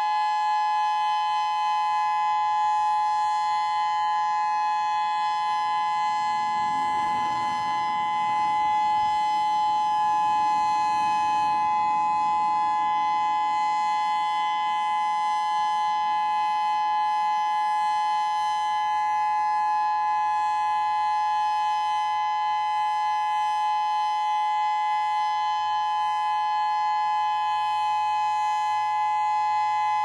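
Whelen 3016 electronic outdoor warning siren sounding a steady alert tone: two close pitches held without any rise or fall. The volume stays constant with no sweep because the siren's rotator is broken, so the speaker array stays fixed in one direction.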